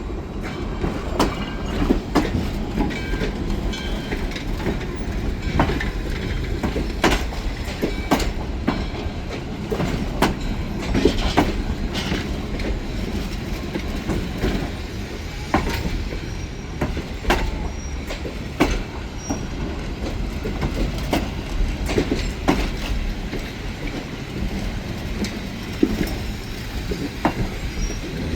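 Train cars rolling along the track: a steady rumble with irregular clicks and knocks from the wheels running over the rail joints.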